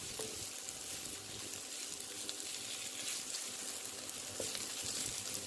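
Chopped onion, green chilli and carrot sizzling steadily in hot oil in a wok-like pan while a wooden spatula stirs them. The carrots are being cooked only lightly, to keep some crunch.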